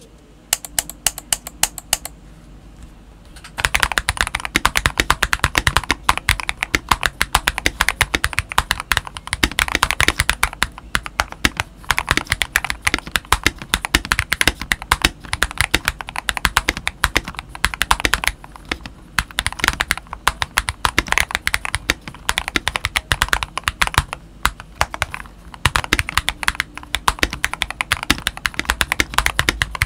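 Typing on an Eyooso K620 tenkeyless mechanical keyboard fitted with lubed Akko Rose Red linear switches and YMDK OEM PBT keycaps, the case modded with bike weights, a silicone pour and three layers of tempest tape. A few scattered keystrokes come first, then fast, steady typing from about three and a half seconds in.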